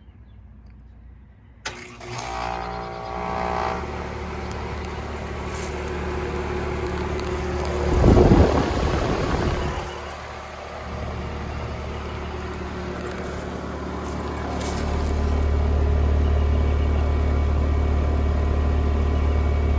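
2006 Comfortmaker 1.5-ton central air conditioner's outdoor unit starting up after sitting off for a couple of days: a sudden click about two seconds in, then the compressor hum and fan coming up, with a loud rush of noise about eight seconds in. It then settles into steady running, with a low hum that grows stronger near the end.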